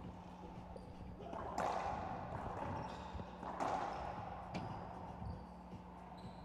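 Racquetball rally in an enclosed court: two hard ball strikes ring and echo off the walls about two seconds apart, between lighter knocks of the ball and short sneaker squeaks on the hardwood floor. A steady low electrical hum runs underneath.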